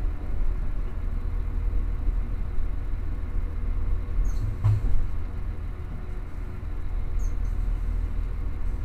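Passenger train running along the track, heard from inside the carriage as a steady low rumble, with a single sharp knock a little under halfway through.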